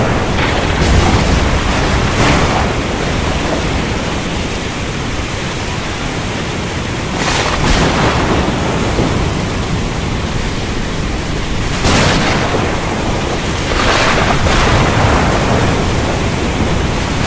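Rain falling over the ocean, with surf: a loud, dense, steady wash of noise that swells briefly every few seconds.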